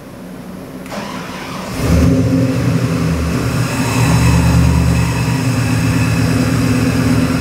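GM LS3 376 cubic-inch (6.2 L) V8 crate engine on an engine dyno, firing up about two seconds in and then running steadily at a raised idle, freshly started and not yet settled to its base idle.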